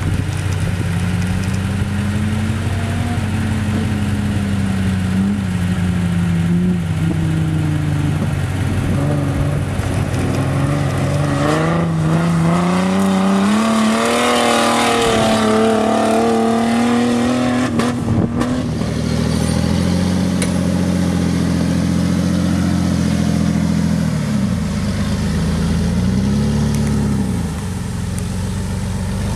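Lifted 2003 Jeep TJ's engine revving hard as it speeds across a dirt field, its pitch rising and falling and loudest as it passes close about halfway through. Then a lower engine note with short dips and rises in pitch as the Jeep crawls over a dirt mound.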